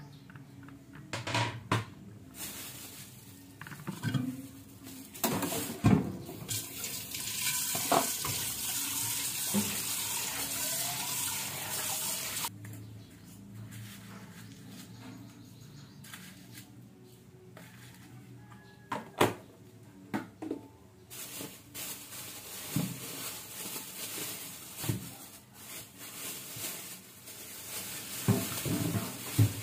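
Water from a kitchen tap running into a stainless steel sink twice: about six seconds in the first half, then again, quieter, through the last third. Sharp knocks and clinks of an aluminium pan and dishes being handled come between and over the running water.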